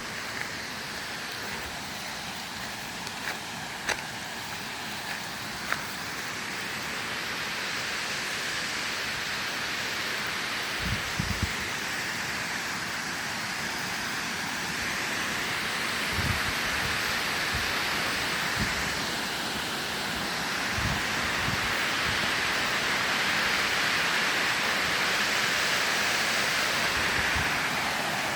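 Waterfall rushing: a steady hiss of falling water that grows gradually louder, with a few short low thumps in between.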